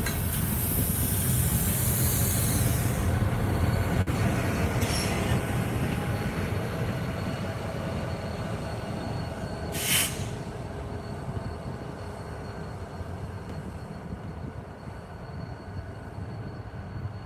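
Union Pacific freight train passing close by: the last hopper car and the rear locomotive roll past with a high wheel squeal in the first few seconds, then the rumble fades as the train moves away. About ten seconds in there is one short, sharp burst of noise.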